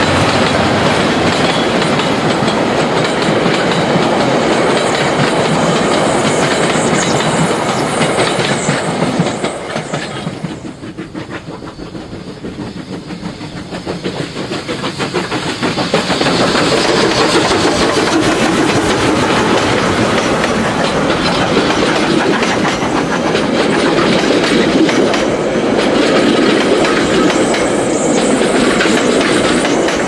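Steam-hauled excursion train led by a New Zealand Railways Wab-class 4-6-4T tank locomotive rolling past close by, its wheels clattering over the rail joints. The sound drops away about ten seconds in and comes back loud at about sixteen seconds as the locomotive and its carriages pass.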